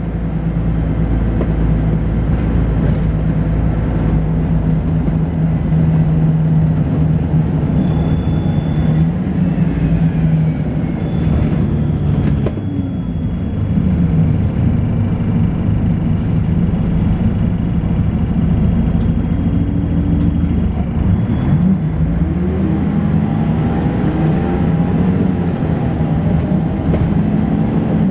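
Volvo B10BLE bus running on the move, heard on board: a steady low engine-and-driveline drone through its ZF automatic gearbox. The pitch dips and climbs again about halfway through, and once more near the end. A faint high-pitched whine sits on top at times, the kind of strange high-pitched noise this bus is known for.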